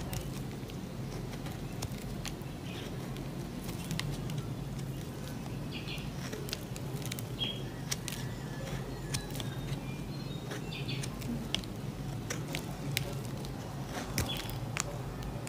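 A bar of soap being shaved by hand into fine flakes: faint, irregular scratching with small clicks, over a steady low hum.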